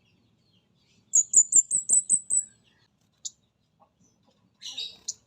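Comade gunung singing its trotol lure song: a quick run of about eight high, sharp notes, each swept down at its start. Near the end comes a short, rougher chatter.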